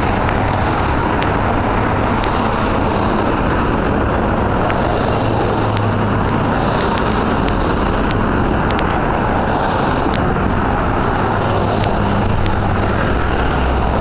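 Steady road traffic noise from cars passing on a city street, an even wash of noise that holds throughout.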